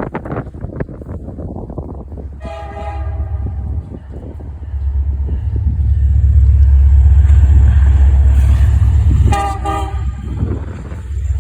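Diesel locomotive horn sounding two blasts as the train passes, a longer one about two and a half seconds in and a shorter one about nine seconds in. Between them a heavy low rumble from the passing Norfolk Southern SD70ACe-led freight swells up and is loudest in the middle.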